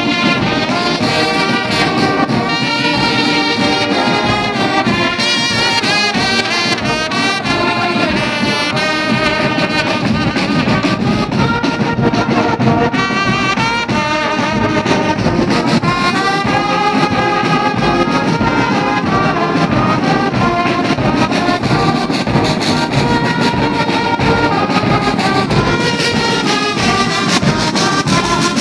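A large brass band of trumpets and deeper horns such as tubas, playing together, loud and steady.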